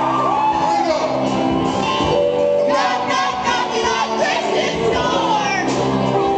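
A live rock band plays, with electric guitars and drums under a lead singer's vocals, amplified through a PA in a large hall.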